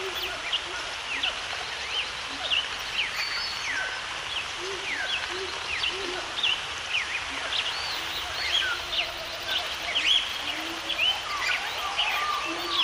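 A chorus of birds chirping, with many short, quick calls overlapping from several birds and a few lower calls beneath them, over a steady natural background hiss.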